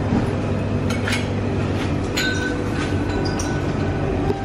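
Buffet-room ambience: a steady low hum with a few scattered clinks of crockery and glassware.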